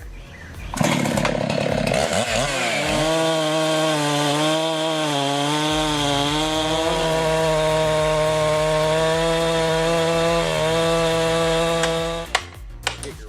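Chainsaw running at high revs and cutting wood, its engine pitch dipping and rising as it loads in the cut. It starts about a second in and stops suddenly near the end.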